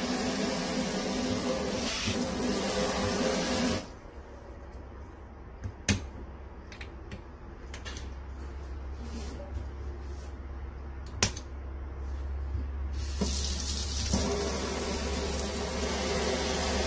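Kitchen faucet running a weak stream into a stainless steel sink, shut off about four seconds in. A few sharp clicks follow as the faucet is handled, a steady low hum comes in, and the water runs again from about two-thirds of the way through.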